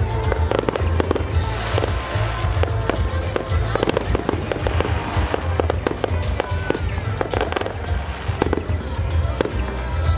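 Aerial fireworks bursting in a quick, irregular string of sharp bangs and crackles, with music and crowd voices going on underneath.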